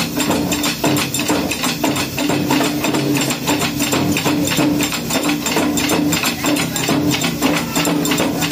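Taiko drum ensemble playing: large barrel drums (nagado-daiko) and small rope-tensioned shime-daiko struck with wooden sticks in a fast, driving rhythm of continuous strikes.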